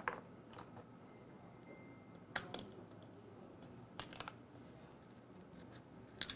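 Faint sharp clicks and taps of a realme 7i smartphone's main board being pried loose and lifted out of its frame, in four short clusters spaced roughly two seconds apart.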